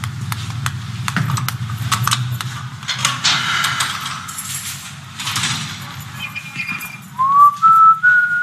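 Keys jangling and metal clicks at a barred cell door, then someone whistles a tune in clear held notes starting about seven seconds in.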